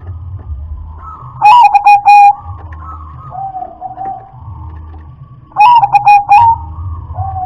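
Zebra dove (perkutut) cooing: two loud song phrases of several quick notes each, about a second and a half in and again near six seconds, with softer coos between them.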